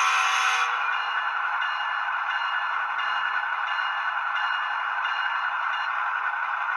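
Sound-equipped HO scale model of a GE ES44AC diesel locomotive: a loud horn blast from its onboard speaker ends under a second in, then the steady idling sound of the diesel prime mover runs on, thin with almost no low end.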